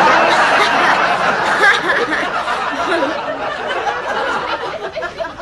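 Studio audience laughing at a joke. The laughter is loudest in the first two seconds and slowly dies down toward the end.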